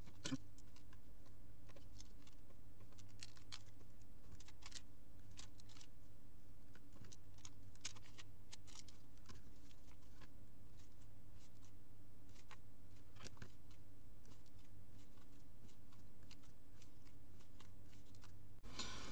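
Steady low hum with scattered faint clicks and light rustles from hands working on a 3x3 speedcube and its sticker sheets.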